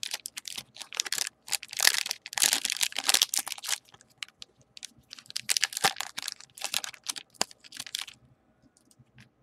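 Foil trading-card pack being crinkled and torn open by hand: a run of irregular crackling rustles that stops about eight seconds in.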